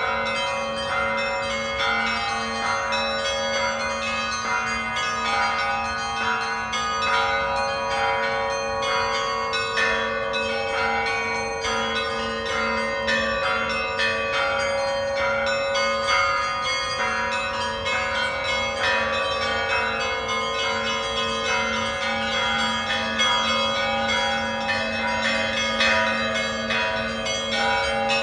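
Church bells ringing without pause: a quick, repeating peal of smaller bells over the steady hum of larger bells.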